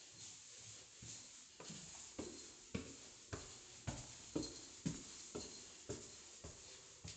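Footsteps climbing a staircase: soft, even thumps about two a second that are loudest in the middle of the climb.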